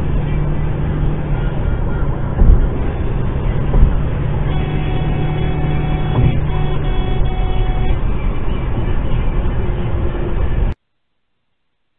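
Steady road and engine noise inside a car cabin at highway speed, with a couple of brief knocks early on. From about four and a half seconds in, a high steady tone lasting about three seconds, broken twice, sits over it. The sound cuts off suddenly near the end.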